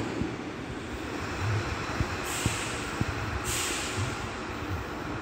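Mitsubishi Fighter X truck, converted to six-wheel drive, pulling away slowly with its diesel engine running. A few short dull knocks and two stretches of high hiss sound about two and three and a half seconds in.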